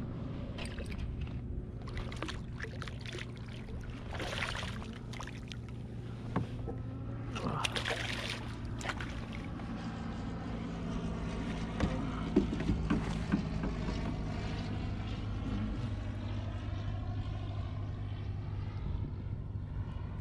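A small redfish splashing at the water's surface beside a kayak as it is landed, with a few sharp knocks about two-thirds of the way through. Wind noise on the microphone and a steady low hum lie underneath.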